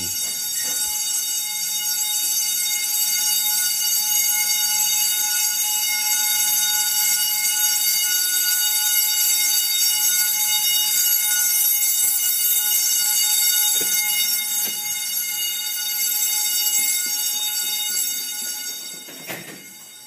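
A 120-volt AC fire alarm bell ringing continuously, not coded, with a steady metallic clang. It fades toward the end.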